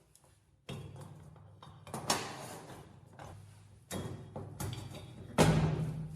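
Four sharp knocks or clanks, roughly one every one and a half to two seconds, each ringing away; the last is the loudest. A steady low hum runs underneath.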